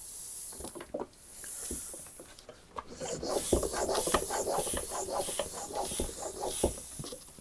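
Hand pump inflating a bicycle tyre, air hissing with each stroke: two separate strokes at the start, then quicker continuous pumping from about three seconds in.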